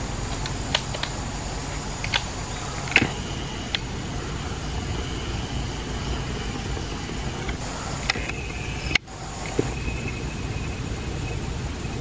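Steady background noise with a thin, high, unchanging tone over it, and a few scattered sharp light clicks. The whole sound cuts out for a moment about nine seconds in.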